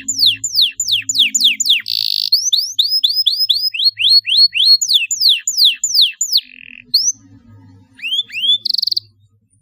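Canary singing: a fast run of high whistled notes that sweep in pitch, about three or four a second, broken by short buzzy trills. It thins out near the end to a few notes and a last buzzy trill.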